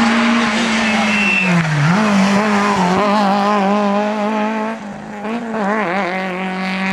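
A hillclimb rally car's engine running at high revs, with the revs dipping sharply about two seconds in and climbing again. The tyres squeal briefly.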